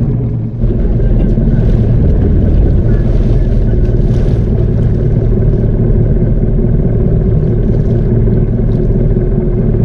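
Small wooden fishing boat's engine running steadily, with a brief dip about half a second in.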